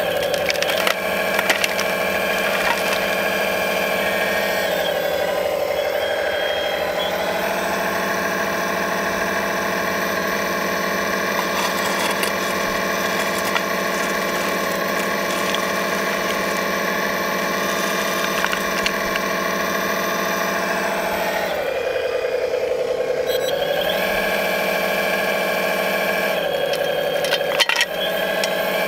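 1/14-scale RC Volvo 480D hydraulic excavator's pump running with a steady whine, its pitch dropping twice as the hydraulics take load while digging. Gravel stones clatter a little about a second in and again near the end.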